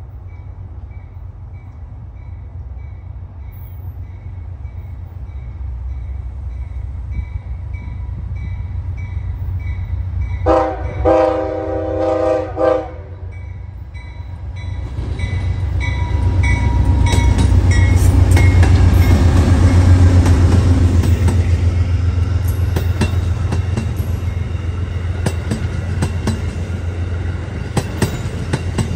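Amtrak passenger train approaching and passing, pulled by two GE diesel locomotives, a P42 Genesis leading and a B32-8W second. The engines' low rumble builds, and the locomotive horn sounds one blast of about two seconds, several notes together, a little over a third of the way in. The locomotives pass loudest about two-thirds through, then the stainless passenger cars roll by with rapid wheel clicks over the rail joints.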